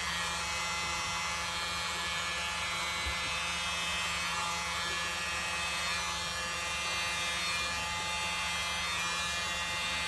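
A small handheld electric air blower running steadily, a motor hum with a whine, as its air stream pushes wet acrylic paint outward on a tile to open a bloom.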